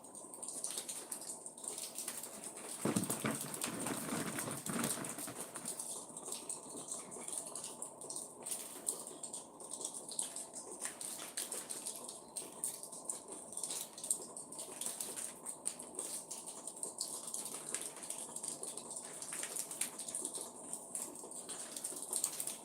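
Backyard ambience: birds chirping in short, irregular notes over a steady high-pitched hiss, with a louder rustling noise about three to five seconds in.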